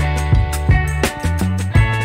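Background music with a steady drum beat and a bass line, about three beats a second.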